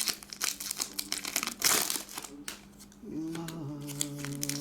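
Plastic trading-card pack wrappers crinkling and cards being handled, in a quick run of crackles with a quieter stretch in the middle. A faint tune with held low notes comes back in about three seconds in.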